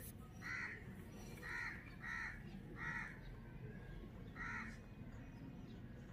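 A bird calling: five short calls, the last after a longer gap.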